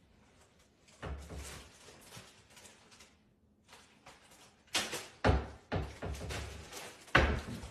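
A cat pulling a plastic snack bag about, the bag rustling and crinkling, with a few sharp knocks and thumps against the counter and appliances about five seconds in and again near the end.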